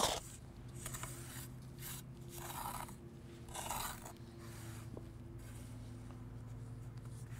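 A shovel and a steel hand trowel scraping through thick wet mortar, spreading a mortar bed for a stone slab: about four short scrapes in the first four seconds, then fainter trowel strokes.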